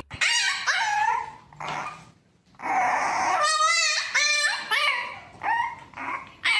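A dog whining and yipping: a string of short, high, sliding cries, a brief pause about two seconds in, then a longer wavering howl-like whine and more short yelps.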